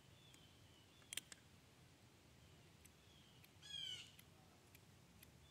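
Near silence, broken by a faint bird call of about half a second with a few fainter high chirps, and a faint click about a second in.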